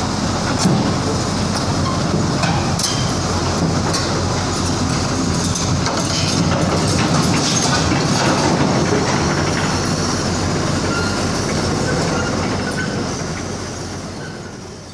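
Excavator's diesel engine running steadily under load while its steel tracks clank and squeal against metal as the machine comes down off a truck, fading out near the end.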